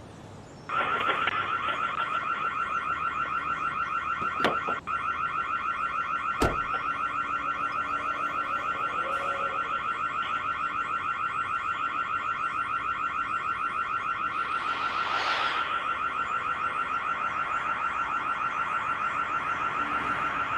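An electronic alarm sounds a high, steady tone that pulses rapidly and evenly and does not let up. Two sharp knocks come a few seconds in.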